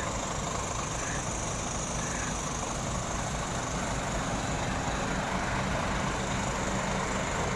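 A heavy truck's diesel engine idling, a steady low rumble that grows slightly louder toward the end.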